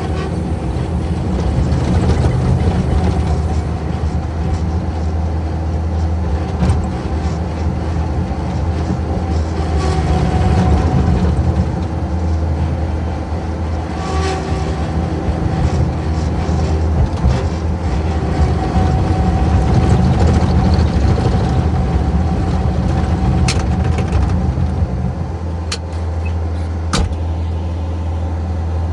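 A heavy engine running steadily with a deep hum, its loudness rising and falling a little; a few sharp clicks sound near the end.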